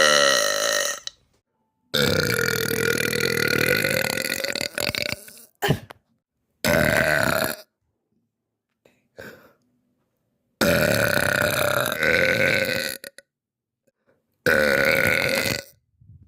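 A girl burping: a run of about six loud, drawn-out burps, the longest lasting about three seconds, others a second or less, with dead silence between them.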